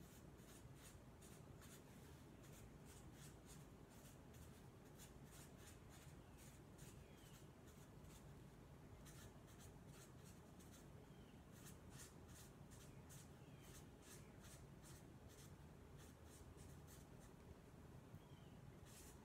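Sharpie marker drawing on a paper flip-chart pad: faint, rapid short strokes, several a second, with a few brief pauses.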